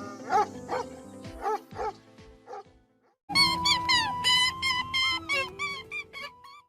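Music with short, high yelping animal calls over it, several a second. It cuts out about three seconds in and resumes with a faster, higher run of calls.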